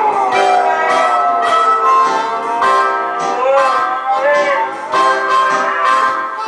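Huskies howling along to blues music: a long howl sliding down in pitch at the start, then shorter rising-and-falling howls about halfway through, over steady musical backing.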